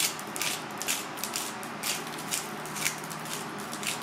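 Seasoning shaker being shaken over raw fish fillets in short, sharp strokes, about two or three a second.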